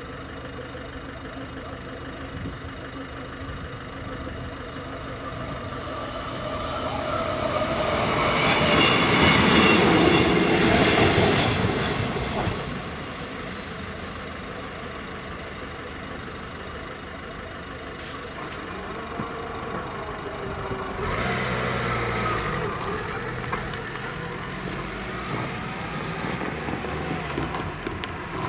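Diesel train passing over a level crossing, growing louder to a peak about ten seconds in and then fading, with a smaller rise again later on.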